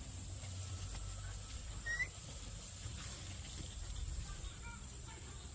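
Quiet outdoor ambience: a steady high hiss and a low rumble, with one short chirp about two seconds in, the loudest sound, and a few fainter chirps later on.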